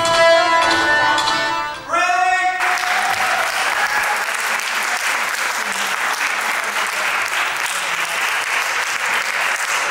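Live accordion music ends on a held final chord about two seconds in, followed by an audience clapping steadily for the rest.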